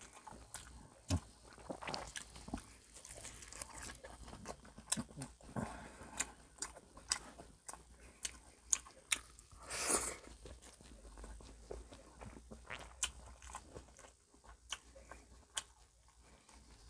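A person chewing and biting food close to the microphone: a run of small mouth clicks and smacks, with a short, louder rush of noise about ten seconds in.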